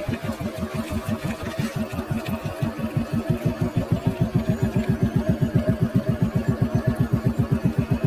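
Vehicle engine running at low speed, a steady throbbing of about eight beats a second that grows louder and more even about three seconds in.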